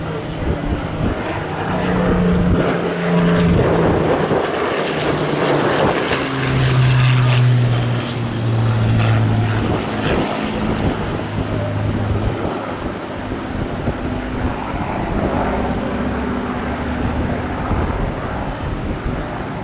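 Supermarine Spitfire's V12 piston engine and propeller droning as the fighter flies past, the pitch dropping in steps and the sound loudest during the first half, then settling to a steadier drone.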